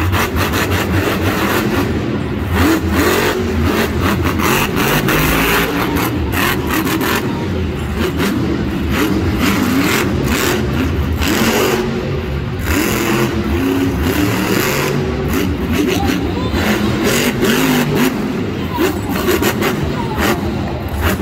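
Monster truck's supercharged V8 engine revving hard, its pitch repeatedly rising and falling as the throttle is worked.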